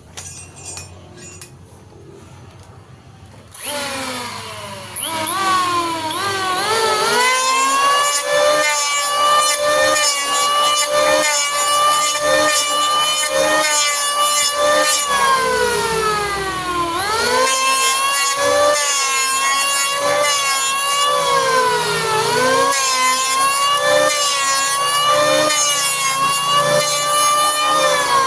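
Electric hand planer with freshly sharpened blades switched on: its motor whine climbs in pitch for a few seconds, then runs steadily. The pitch dips and recovers twice, once around the middle and once near the end.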